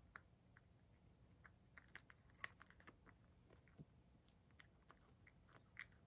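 Cat chewing a dried sardine (niboshi): faint, irregular clicks of its teeth, a little louder about two and a half seconds in and again near the end.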